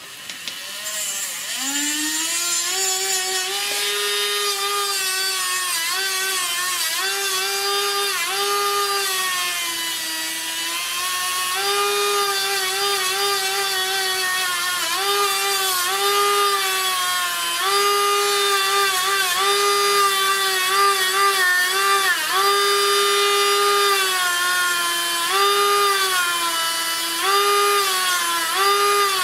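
Dremel Stylus cordless rotary tool spinning up about a second in, then running with a steady high whine as its bit grinds flashing off a resin model part. The pitch sags briefly again and again as the bit is pressed into the resin and the motor slows under load.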